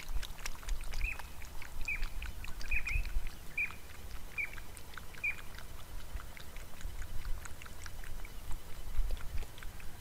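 A kangaroo lapping water from a trough, a steady run of small wet clicks, while a bird calls about seven short, slightly falling notes in the first half.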